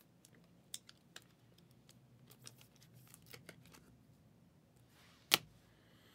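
Trading cards being handled and sorted by hand: faint scattered clicks and rustles of card stock and plastic, with one sharper click a little after five seconds in.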